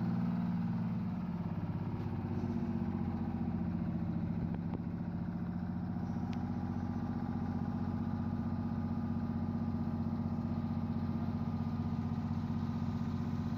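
A classic bus's engine idling steadily: a low, even drone with a fine rapid pulse.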